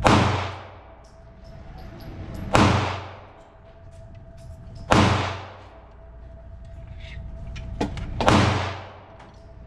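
Four gunshots, about two and a half seconds apart, each with a long echoing tail.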